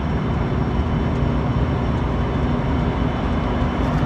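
Diesel locomotives, EMD SD75I CN 5631 leading and GE C40-8M CN 2409 trailing, running as they pull a freight train, a steady low rumble.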